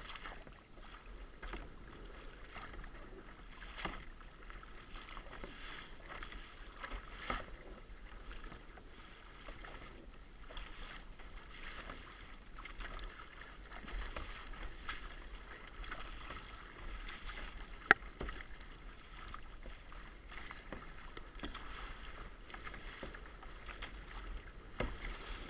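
Kayak paddle strokes in choppy sea water: soft splashes and swishes every second or two. About eighteen seconds in there is a single sharp knock.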